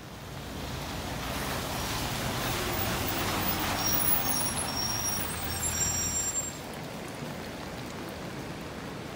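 A city bus passing close by on a rain-wet road: the engine and tyres hissing on the wet asphalt swell over a few seconds, with brief high-pitched squeaks midway, then the sound drops off sharply about six and a half seconds in.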